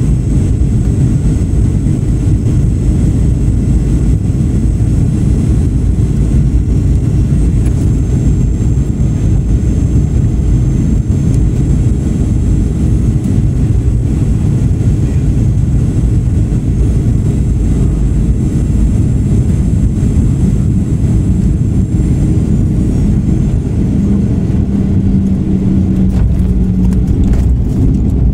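Inside the cabin of a Boeing 737-800 on final approach, beside the wing engine: a steady loud roar of the CFM56 turbofan and rushing air, with a thin high fan whine that steps down in pitch twice.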